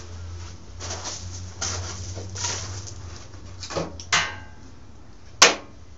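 Steel parts being handled on a workbench: several short scraping and sliding noises, one with a brief metallic ring, then a single sharp clank about five and a half seconds in, over a steady low hum.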